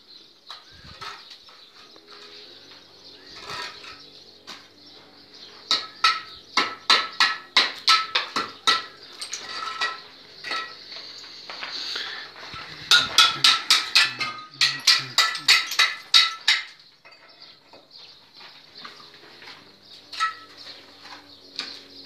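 Two runs of quick, sharp knocks with a metallic ring, about three or four a second and a few seconds each: a metal tool striking brick during bricklaying, with fainter scattered knocks between.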